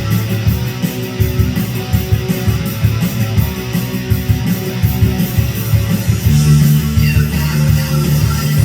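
Loud rock-style music with distorted electric guitar and a pulsing beat; the sound grows fuller and steadier about six seconds in.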